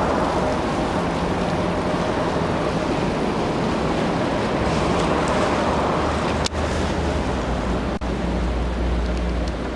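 Steady wash of river water and a low engine drone from a passing bumboat-style tour boat. The sound briefly drops out twice, about six and a half and eight seconds in.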